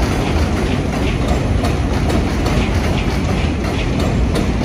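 Vintage R33 and R36 Redbird subway cars running past on elevated track: a steady, loud low rumble with steel wheels clattering over the rail joints.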